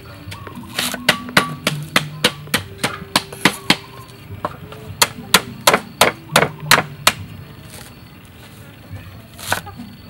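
Cleaver chopping water spinach stems on a round wooden chopping board. The sharp knocks come in quick runs of about three or four a second, with a pause between runs and a couple more strikes near the end.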